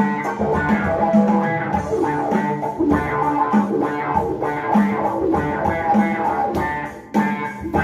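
Electric bass guitar playing a groove of plucked, rhythmic notes, with a brief drop in level about seven seconds in before the playing picks up again.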